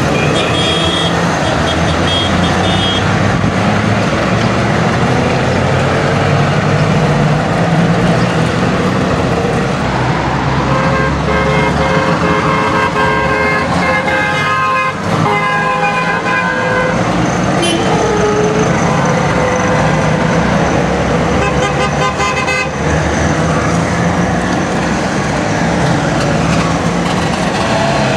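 A column of Trabant cars driving past one after another, their two-stroke engines running, with car horns tooting several times near the middle.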